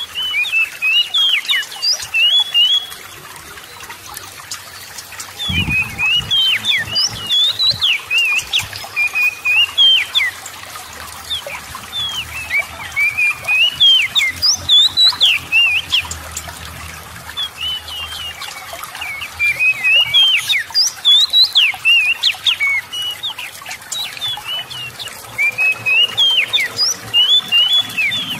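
Oriental magpie-robin (kacer) singing: five bouts of rapid, sliding whistled notes with short pauses between them, over a steady trickle of water.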